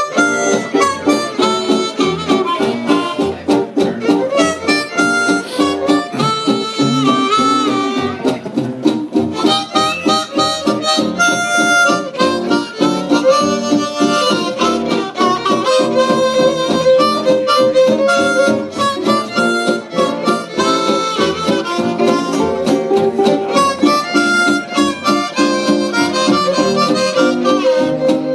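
Small acoustic band playing an old-time popular song. A harmonica-like reed lead carries the melody over strummed guitar with a steady beat.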